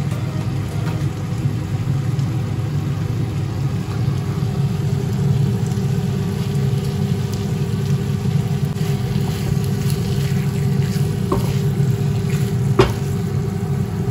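Chicken curry frying in a pan on the stove: faint sizzling and crackling over a steady low rumble, with a couple of sharp knocks near the end.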